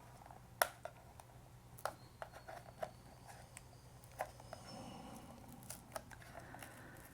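Faint, irregular clicks and light scraping from small hand tools and fingers working at a computer mouse's underside, prying off the old worn skates and their adhesive.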